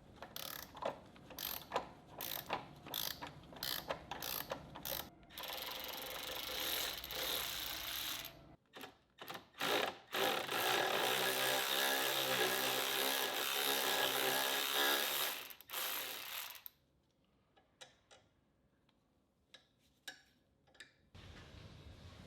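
Ratchet wrench clicking, first in separate strokes, then in two longer stretches of fast continuous ratcheting, on the fasteners of a Subaru front hub and knuckle. Near the end the clicking stops, leaving only a few faint ticks.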